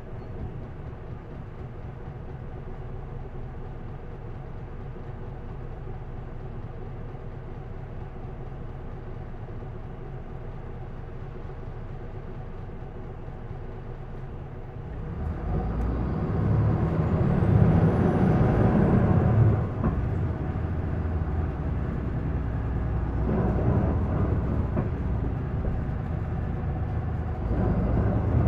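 Isuzu Erga city bus's diesel engine heard from inside the cabin, idling steadily, then revving hard as the bus pulls away about halfway through, with a high whine that rises and falls and further surges through the gears. This bus is noted for an abnormal noise when worked hard.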